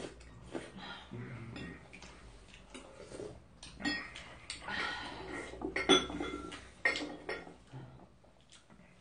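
Chopsticks and spoons clinking and scraping against ceramic bowls and plates during a meal, with a cluster of sharp clinks between about four and seven seconds in.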